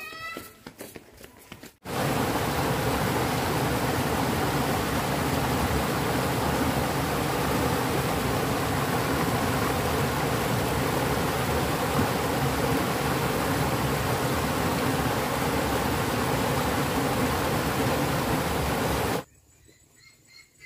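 Loud, steady rushing noise with no clear pitch, cutting in sharply about two seconds in and cutting off just as sharply near the end.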